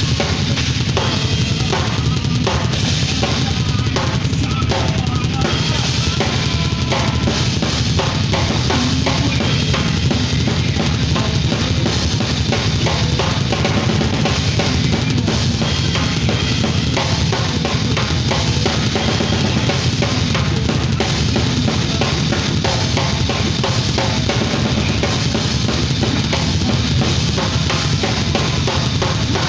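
Drums played on a Roland electronic drum kit along with a backing track: a steady, fast beat of bass drum, snare and cymbals that keeps going without a break.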